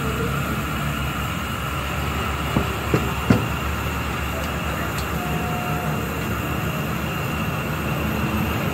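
Steady roar of a gas burner at full flame under a pot of boiling milk tea. Three sharp knocks come close together about two and a half to three and a half seconds in, the last the loudest.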